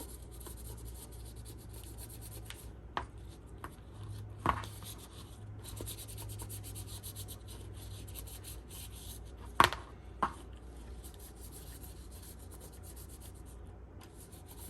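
Cleaning wipe rubbing over the plastic ear cup of Beats headphones: a steady, scratchy wiping with short pauses. A few light knocks come from handling the headphones, the loudest about two-thirds of the way in.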